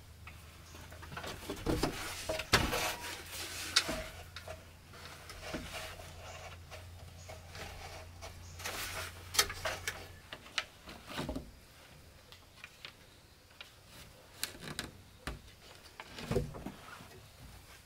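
Bamboo being handled and worked by hand: irregular knocks, taps and scrapes. A faint low hum stops about ten seconds in.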